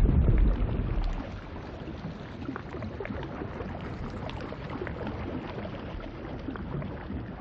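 Underwater bubbling sound effect: a steady wash of water noise with many small bubble pops. A deep rumble in the first second dies away, and the bubbling fades near the end.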